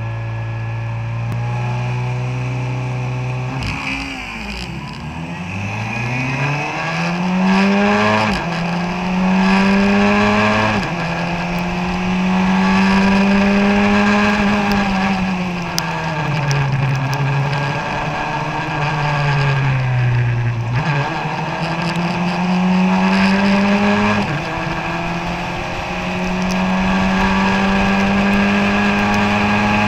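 Formula Ford 1600 car's four-cylinder Ford Kent engine, heard from the cockpit. It is held at steady revs, then about four seconds in the car launches and the note climbs through the gears with sudden drops at each upshift. Around halfway the revs fall away and stay lower for a few seconds, then climb again.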